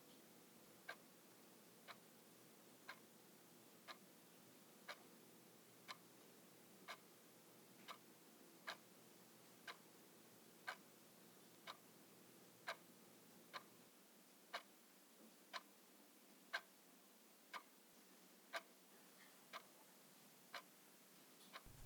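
Clock ticking steadily, about one tick a second, in an otherwise near-silent room.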